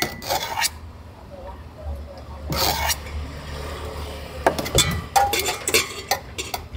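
Metal spoon clinking and scraping against a stainless steel bowl as chutney and masala are spooned in, in a few short clusters. A steady low hum runs underneath.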